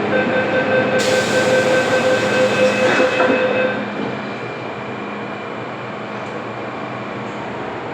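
MTR M-Train door-closing warning tone sounding over a hiss as the doors close, with a knock about three seconds in as they shut. The tone and hiss stop after nearly four seconds, leaving the steady, quieter hum of the train.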